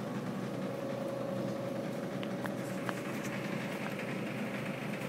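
Steady running hum of a refrigerated drink vending machine, with a faint held tone and a few light clicks.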